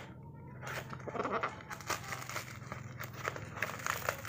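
Parcel packaging being cut and pulled open by hand with a small blade: wrapping and packing tape crinkling and rustling, with irregular crackles and small snaps. It opens with a single sharp snap.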